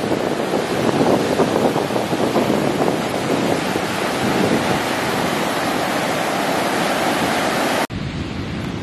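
Ocean surf washing up on a sandy beach, with wind buffeting the microphone. Near the end it cuts suddenly to a quieter stretch of surf.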